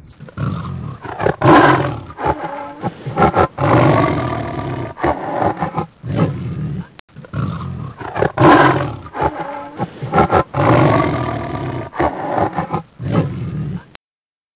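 Sound effect of wild animals roaring, dubbed in with a thin, muffled quality; the same run of roars, about seven seconds long, plays twice over and cuts off suddenly near the end.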